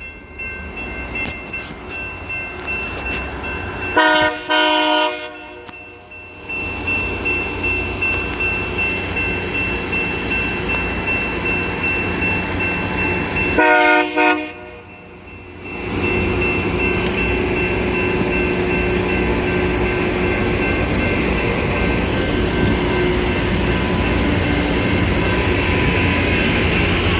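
Loram LMX rail grinder at work: a steady mechanical din with a thin high whine, twice sounding its K3LA five-chime air horn in blasts of about a second and a half, about four and fourteen seconds in. From about sixteen seconds the grinding noise turns louder and denser.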